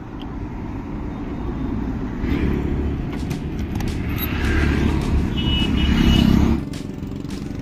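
Motorcycle riding along a road: engine running under wind and road noise on the bike-mounted microphone, swelling louder for a few seconds before dropping off abruptly near the end. A short high beep sounds partway through the swell.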